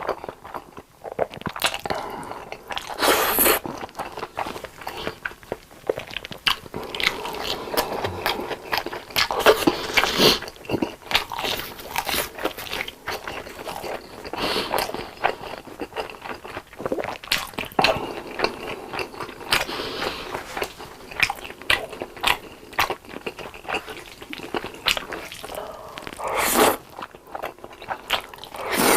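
Close-miked eating with no talk: repeated crunchy bites and chewing, typical of fried long cheese sticks eaten with spaghetti. The loudest bites come about 3 seconds in, around 10 seconds and near the end.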